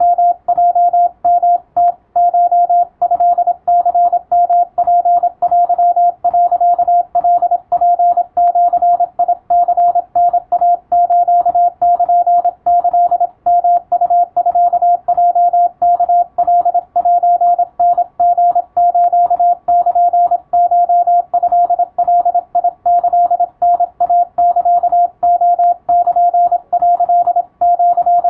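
Japanese (wabun) Morse code practice: one steady beep tone keyed on and off in fast, unbroken strings of dots and dashes.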